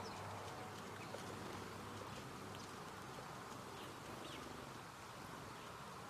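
Faint outdoor ambience: a low steady hum under a haze of background noise, with a few faint high ticks or chirps.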